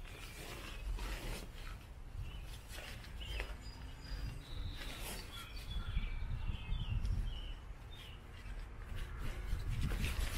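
Gazelle 4T tent's fabric and carry bag rustling in short bursts as the tent is handled and packed, over a low steady rumble, with a few bird chirps in the middle.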